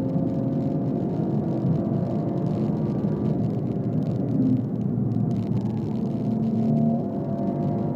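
BMW 135i's turbocharged straight-six heard from inside the cabin while lapping at speed, its note shifting in pitch a few times (around three seconds in and again near the end), over road and tyre noise.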